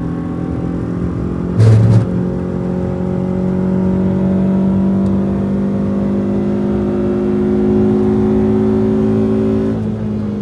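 Renault Twingo RS's 1.6-litre four-cylinder engine pulling hard on track, its note rising slowly in pitch, with a short loud burst about two seconds in. Near the end the note drops, then starts climbing again.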